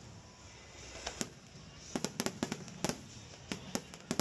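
Fireworks going off: sharp cracks and bangs at irregular intervals, with a quick run of about five cracks two seconds in.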